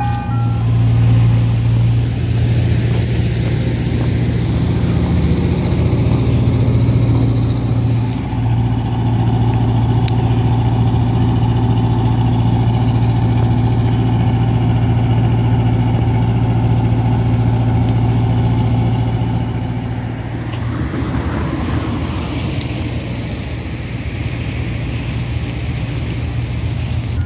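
Soft-serve ice cream truck running close by: a loud, steady low engine hum that turns quieter and rougher about twenty seconds in, as the truck moves off.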